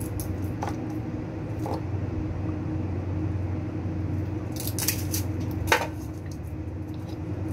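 Kitchen prep handling as garlic is got ready: a few light clicks and taps, with one sharper knock a little past the middle, over a steady low hum.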